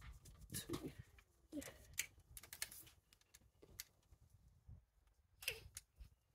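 Faint, scattered clicks and light knocks of hands working rubber intake hoses and a hose clamp back into place in a diesel engine bay.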